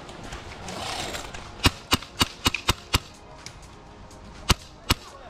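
Airsoft gun firing BBs: a quick string of six sharp shots at about four a second, then two more shots about a second and a half later.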